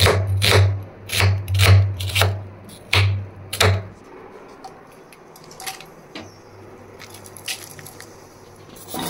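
Kitchen knife chopping onion on a cutting board: a quick, even run of sharp chops, about three a second, that stops about four seconds in, followed by a few faint knocks.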